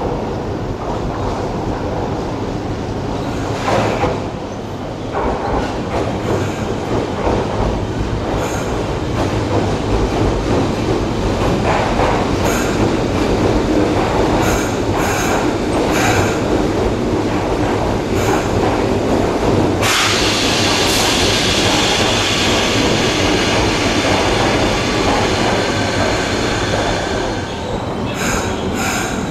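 Electric commuter trains running into the station: a Fukuoka City Subway train rumbling and clattering over the rails, with wheel squeal. About twenty seconds in, a high squeal and hiss start suddenly as a JR Kyushu 305 series train runs in past the platform doors.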